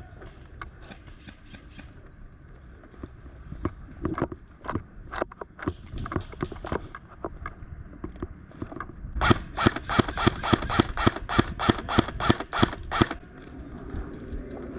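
Scattered sharp clicks, then a quick regular run of sharp clicks or cracks, about five a second for nearly four seconds, which is the loudest part.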